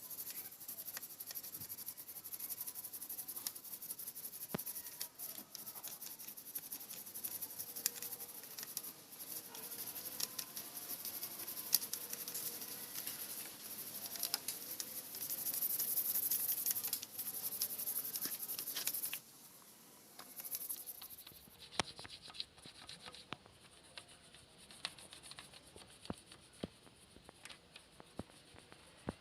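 Brush scrubbing a motorcycle engine block: a steady scratchy rasp of bristles on metal with many small clicks. About 19 seconds in it stops, leaving only scattered light ticks.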